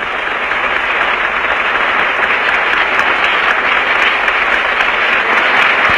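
Audience applauding at length, a dense, even clatter of many hands that grows a little louder in the first second and then holds steady, on an old archival recording.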